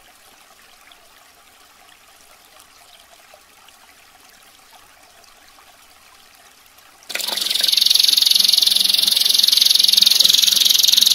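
Faint trickling water for about seven seconds, then a domestic canary's song cuts in suddenly and loudly: a dense, rapid, high-pitched rolling trill.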